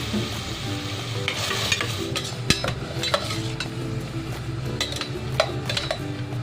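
Chicken pieces sizzling in a pan with butter, garlic and onion while being stirred. A spatula or spoon clicks and scrapes against the pan many times.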